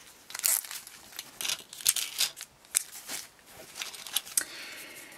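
Hands handling small plastic zip-top bags of stitch markers and cable needles: short bursts of plastic crinkling and rustling, with a longer stretch of rustling near the end.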